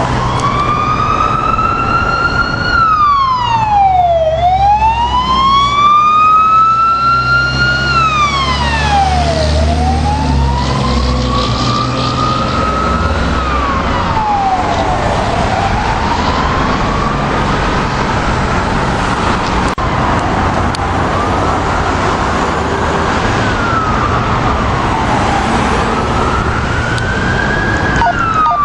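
Emergency vehicle siren on wail, its pitch rising slowly and dropping back about once every five or six seconds, loudest at first and then fading. A heavy truck engine rumbles underneath in the first half.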